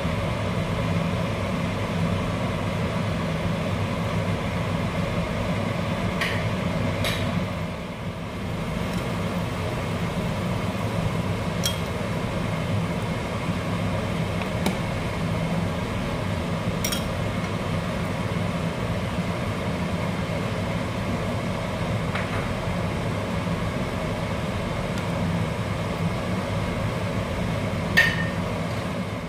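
A steady low kitchen hum, with a few sharp clinks of a metal ladle against a nonstick pan as the soup is stirred and served up; the loudest clink comes near the end.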